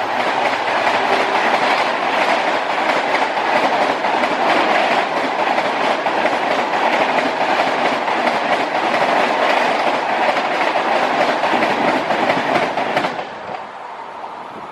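Humsafar express coaches rushing past at about 130 km/h, a steady loud rush of wheels on the rails. The sound drops away suddenly about thirteen seconds in as the end of the train passes.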